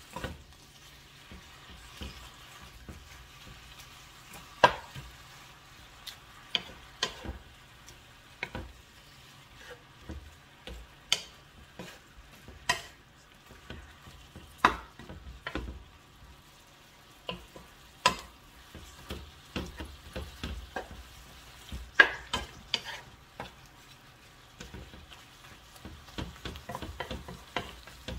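Spinach stir-frying in a pan with oyster sauce and soy sauce: a wooden spatula tosses the leaves with irregular taps and scrapes against the pan over a soft steady sizzle.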